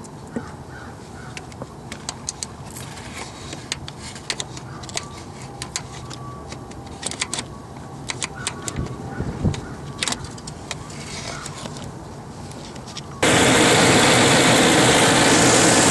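Light clicks and taps of hand tools and parts being handled. About 13 seconds in, this gives way abruptly to the Ford F-150's engine running loud and steady, with both VCT solenoids replaced.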